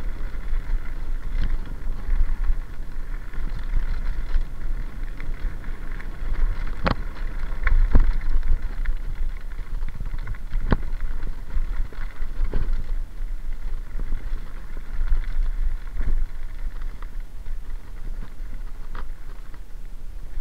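Mountain bike rolling fast downhill on a gravel track: a steady rumble of tyres on gravel and wind on the microphone, with several sharp knocks and rattles as the bike jolts over bumps.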